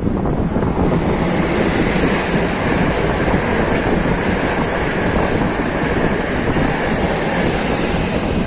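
Dutch intercity passenger train passing through the station at speed: a steady rush and rumble of wheels on rails, mixed with wind on the microphone.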